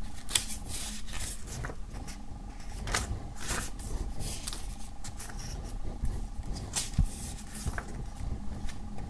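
Paper pages of a thick softcover booklet being turned by hand, one after another: a string of short, irregular paper rustles and flicks over a faint steady hum.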